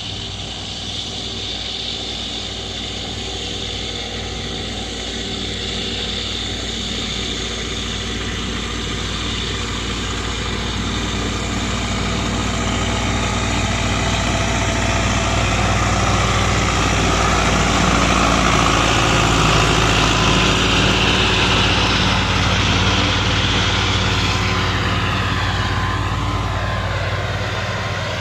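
Ford 6610 tractor's four-cylinder diesel engine working steadily while pulling a Pöttinger Novacat disc mower through grass. It grows louder as the tractor approaches, is loudest past the middle, then fades slightly, with a falling pitch sweep near the end as it passes.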